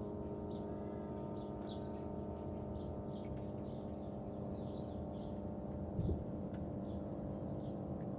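Small birds chirping in short calls, repeated every half second or so, over a steady hum made of many held tones, with a soft low thump about six seconds in.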